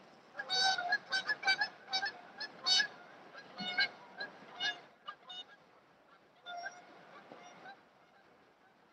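Geese honking: a rapid, overlapping run of short honks for the first five seconds or so, then another short burst of honks about six and a half seconds in.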